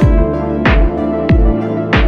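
Background music: an electronic track with a steady kick-drum beat, a little under two beats a second, over held chords.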